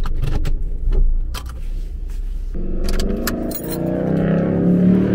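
Car engine rumbling in the cabin, with sharp clicks and rattles as the automatic gear lever is moved. About two and a half seconds in, music with held tones comes in over it.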